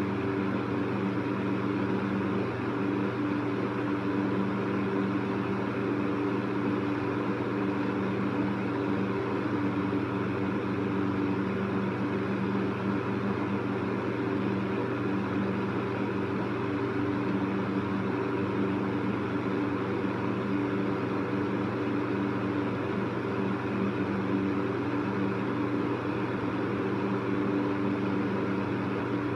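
Electric fan running steadily: an even rush of air over a constant low motor hum.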